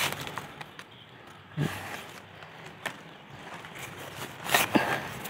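Scattered knocks, clicks and rustles from handling and movement. A dull thud comes about a second and a half in, and a louder rustling burst comes near the end.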